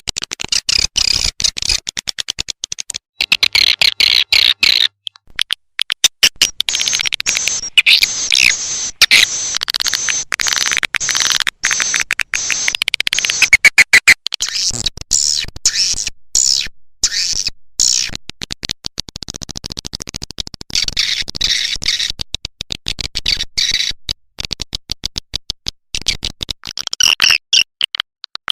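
Swiftlet lure-call recording: dense, rapid, high chirping and ticking twitters in bouts with short breaks, the kind of 'tarik' sound played to draw swiftlets into a nest house.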